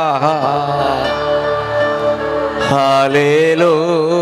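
Christian worship singing: a long, wavering sung 'hallelujah' over held chords of instrumental accompaniment. The voice drops away near the start and comes back in about two and a half seconds later.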